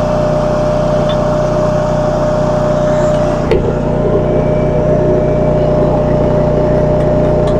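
Machinery running steadily: an engine-like drone with a constant whine over it, and a single click about three and a half seconds in.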